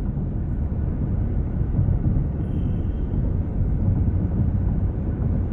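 Steady low rumble of a long Union Pacific intermodal freight train rolling past.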